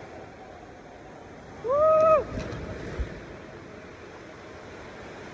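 Steady rush of water under an inflatable raft sliding down a water-park raft slide, with one drawn-out "whoa" shout from a rider about two seconds in.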